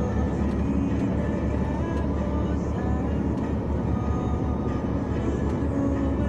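Steady low rumble of a vehicle moving through street floodwater.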